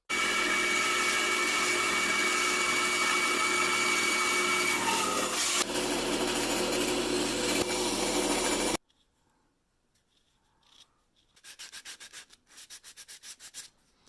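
Bandsaw resawing a piece of walnut thinner: a loud steady cutting noise with a high whine, which stops abruptly about nine seconds in. After a pause, a quick series of faint rubbing strokes near the end.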